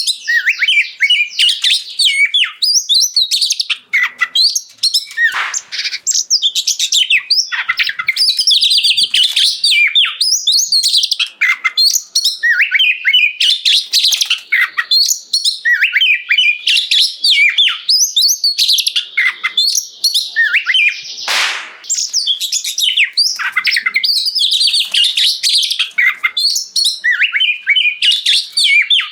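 Oriental magpie-robin (kacer) singing loudly and without pause, a fast string of varied whistled phrases, with one brief harsh rasp about two-thirds of the way through.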